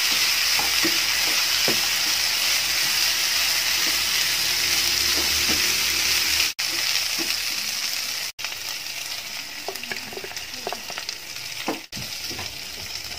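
Chicken 65 pieces sizzling in hot oil in a nonstick frying pan while a spatula stirs and scrapes them, with scattered light clicks of the spatula against the pan. The sizzle eases off a little past the middle.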